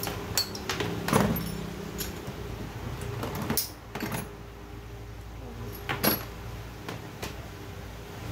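Metal clinks and a handful of sharp knocks as a chainsaw's removed cylinder and engine parts are handled and tapped on a workbench, over a steady low hum.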